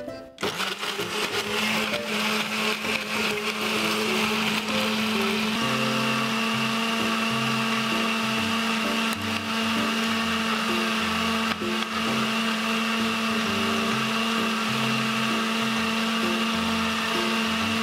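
Aqua countertop blender switched on and running steadily at full speed, grinding salted shrimp and fish with fish sauce into a wet, smooth paste. Its whine shifts slightly about five seconds in.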